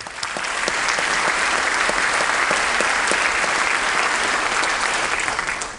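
Audience applauding: many hands clapping, swelling up in the first second, holding steady, then dying away near the end.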